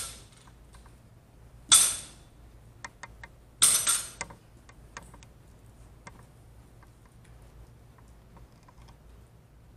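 Loaded barbell set down on a rubber gym floor three times, about two seconds apart, each a sharp clank of the metal plates, the second and third the loudest; a few light rattles and ticks follow.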